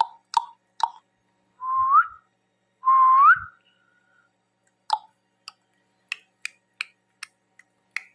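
Ringneck parrots whistling and chirping. There are two short whistles, each holding a note and then sliding up, about two and three seconds in, then a run of short, sharp clicks and chirps through the second half.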